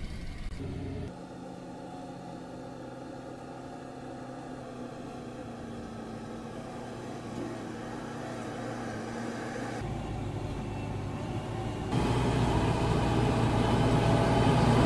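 Heavy diesel engine running steadily, turning suddenly louder and fuller about twelve seconds in.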